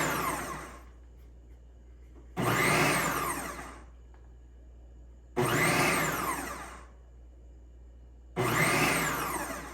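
Ninja Professional XL food processor chopping an onion on its chop setting, the motor and blade running in pulses. Each burst starts suddenly, spins up and winds down over a second or so, about three seconds apart: the end of one and three more full pulses.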